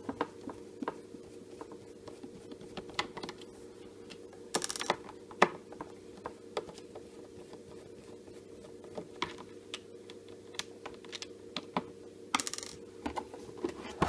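Scattered light clicks and scrapes of a screwdriver turning screws out of a coffee maker's plastic base, with two short scraping bursts, about five seconds in and near the end. A faint steady hum runs underneath.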